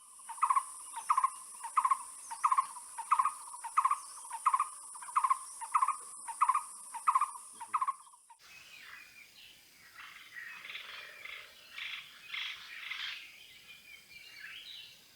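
A bird calling a regular series of short, repeated notes, about two a second, over a steady high-pitched insect buzz. About eight seconds in this cuts off abruptly, giving way to a fainter jumble of mixed chirps from several small birds.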